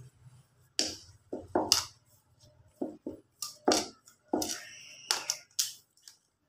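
Hands kneading soft ghee dough in a plastic bowl: a string of about ten separate short squishes and knocks, irregularly spaced, of dough being pressed and slapped against the bowl.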